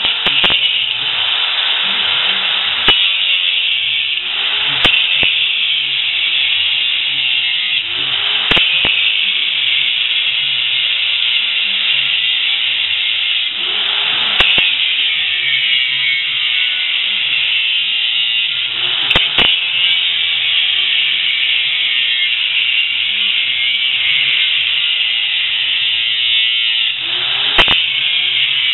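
Angle grinder cutting into a bicycle frame: a steady high whine with grinding noise. Every few seconds its note dips and recovers as the disc bites into the metal.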